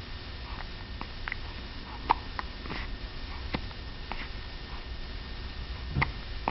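A series of short, sharp hiccups at uneven intervals, roughly one every second or less, with a pause before a last strong one near the end. The loudest comes about two seconds in.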